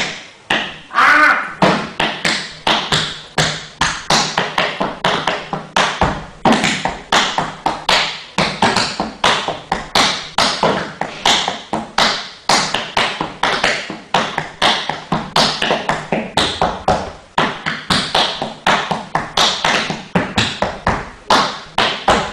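Tap shoes striking a hard floor in tap dancing: rapid runs of sharp taps, several a second, broken by a few brief pauses.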